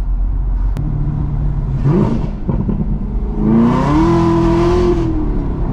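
Supercharged V8 of a heavily modified, roughly 1,000 hp Camaro ZL1, heard from inside the cabin. It runs with a steady low drone, revs up briefly about two seconds in, then rises in pitch again from about three and a half seconds, holds, and eases off near the end.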